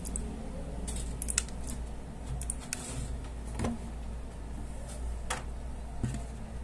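Light scattered clicks and taps as hands work a hot glue gun and grosgrain ribbon while gluing a bow, over a steady low hum.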